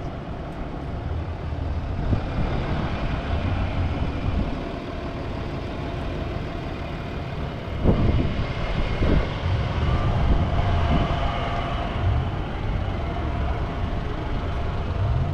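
Off-road 4x4 vehicle driving over rough terrain: steady engine and driving rumble, with two thumps about eight and nine seconds in.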